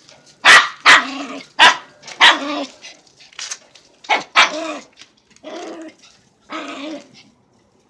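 Dog barking at a ball: about eight loud, sharp barks in an irregular string, some short and some drawn out.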